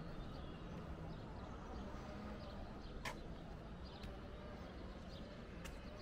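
Open-air ambience: a steady low rumble with faint bird chirps over it and a few sharp clicks, the loudest about halfway through.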